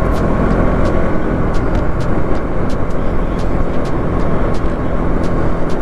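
Motorcycle engine running steadily at cruising speed while being ridden, with wind rushing over the microphone.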